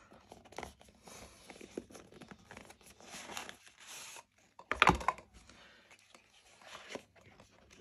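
Small cardboard box being handled and opened: soft scraping and rustling of card as the inner box slides out of its paper sleeve, with light taps, and one louder knock about five seconds in.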